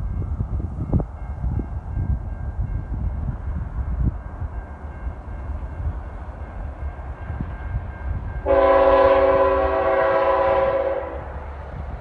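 A freight locomotive's air horn sounds one long blast of about two and a half seconds, starting about eight and a half seconds in, as a steady multi-note chord. Under it is a low, gusty rumble.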